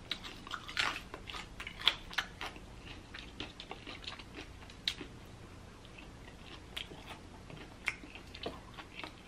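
Fried chicken drumstick being bitten and chewed: crisp batter crunching in sharp crackles. The crackles come thickly for the first two seconds or so, then thin out to occasional ones.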